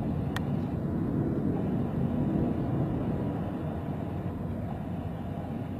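Jet engines of a four-engine Airbus A380 airliner at takeoff power during lift-off, heard from a distance as a steady, deep rumble, with a single sharp click shortly after the start.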